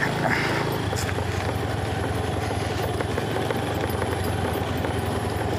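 Motorcycle engine running steadily while the bike rides along, with a constant low hum.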